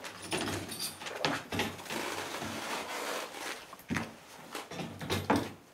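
Hard plastic animal carrier being handled and opened: an irregular string of plastic clicks, knocks and rattles.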